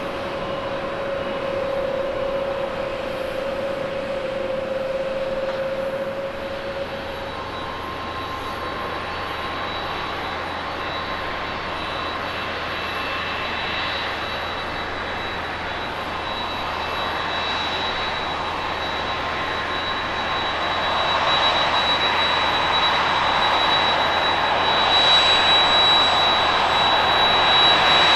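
Jet airliner engines at takeoff power. First an Airbus A350's Rolls-Royce Trent XWB turbofans hold a steady drone with one clear tone as it climbs away. Then an Airbus A321-211's CFM56 turbofans on the takeoff roll grow louder over the last several seconds, with a high steady whine.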